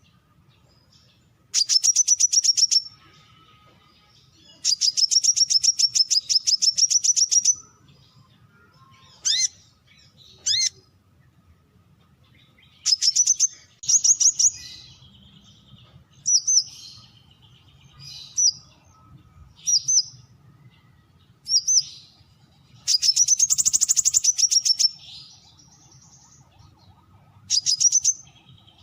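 Brown-throated sunbird calling: high, rapid trills of repeated notes, some lasting two to three seconds, broken up by short single chirps and pauses of a second or two.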